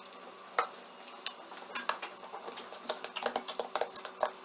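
Spoon clinking and scraping against a bowl while glue is put in for slime, a scattered series of light clicks and taps.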